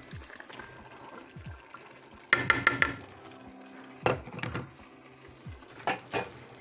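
Stainless steel mixing bowl knocking against metal as shredded salt cod is tipped out of it into the stew pot: a quick rattle of clinks about two seconds in, then a few single knocks.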